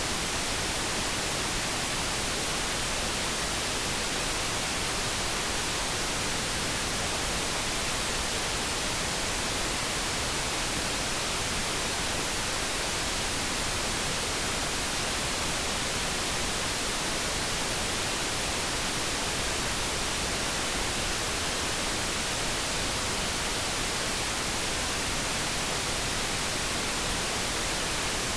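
Steady synthetic noise, an even hiss with no pitch or rhythm, unchanging throughout.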